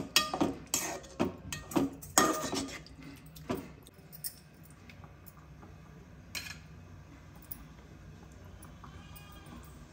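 Metal spoon scraping and clinking against a metal cooking pot while prawn gravy is stirred, with a quick run of knocks over the first three seconds or so. After that it settles to a faint steady low hum.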